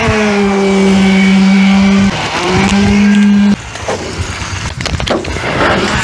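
Electric concrete poker vibrator running with a steady, loud hum, its pitch dipping and rising slightly as it works in wet concrete in the formwork, with a brief break a little after two seconds; it cuts off suddenly about three and a half seconds in. After that come scraping and knocks of hand tools on the concrete.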